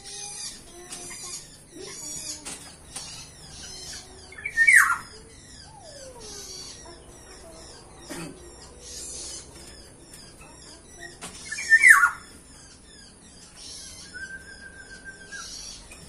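Small aviary birds chirping and twittering throughout, with two loud falling whistles about five and twelve seconds in and a steady held whistle near the end.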